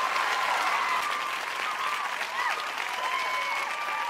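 A crowd applauding, with voices cheering over the clapping.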